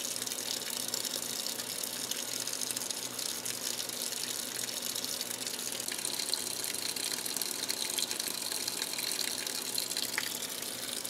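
Washing machine filling with water: a steady rush of water pouring into the drum.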